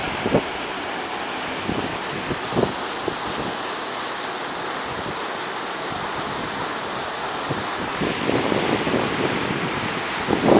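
River water rushing through narrow rock channels and potholes: a steady, even whoosh. Wind buffets the microphone now and then, more heavily near the end.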